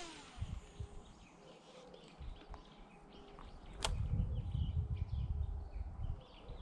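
Faint, scattered bird chirps over quiet outdoor ambience. About four seconds in there is one sharp click, followed by a low rumble on the microphone.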